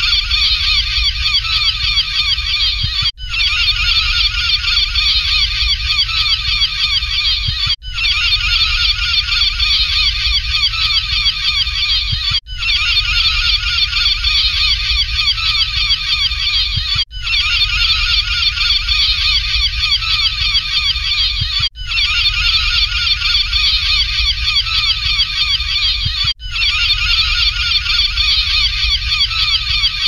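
A flock of gulls calling densely over one another, many overlapping cries with no pause. The same few seconds of calling repeat about every four and a half seconds, each time after a brief dropout.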